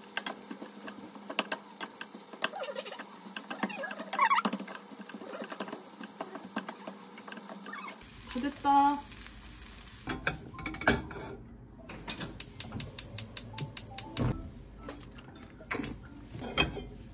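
Kitchen utensils clicking and tapping against cookware, with a fast run of taps about twelve seconds in.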